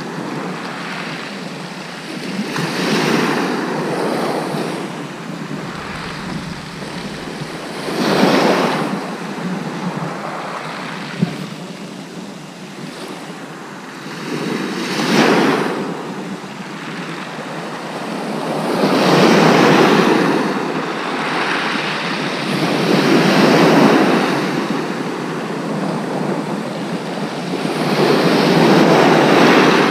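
Sea waves breaking and washing over a shingle beach, the surf rising in a loud surge every few seconds and hissing back between surges. There is one brief sharp click about a third of the way in.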